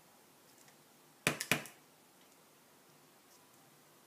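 Clear stamp on an acrylic block knocked down onto paper, two sharp taps in quick succession about a second and a half in, as a sentiment is stamped in a repeating pattern down a strip.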